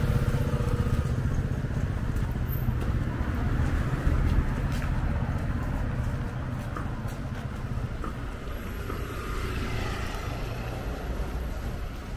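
Road traffic on a busy city street: motor vehicles running and passing. It is louder in the first half and eases off after about six seconds.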